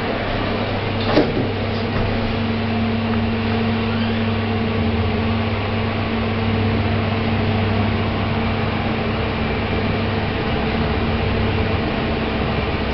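Passenger lift car travelling between floors: a steady machine hum, with a click about a second in as a second low tone sets in and holds.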